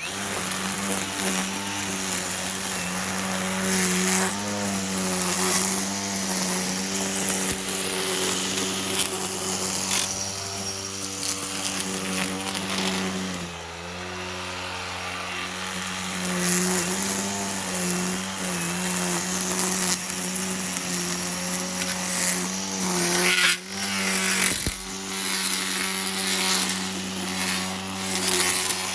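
Small gasoline engine running steadily at working speed, its pitch sagging briefly about halfway as it takes load, with a loud knock about three quarters of the way through.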